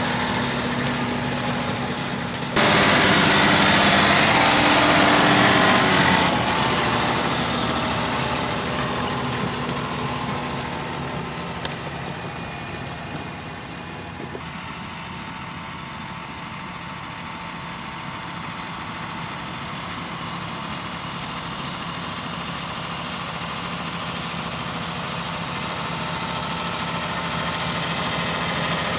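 John Deere 6175R tractor's six-cylinder diesel engine running steadily while pulling a reversible plough. It is loudest for a few seconds just after the start, fades gradually, and grows louder again toward the end.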